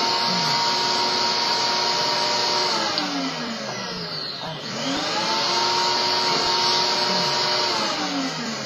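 The electric motor of a household appliance running with a steady high whine and a strong hiss. It is switched off about three seconds in and winds down, is switched back on about five seconds in and spins up to speed again, then starts winding down near the end.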